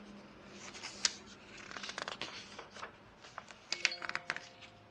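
Glossy magazine pages being flipped and handled: paper rustling, with sharp flicks of pages turning about a second in, around two seconds and near four seconds.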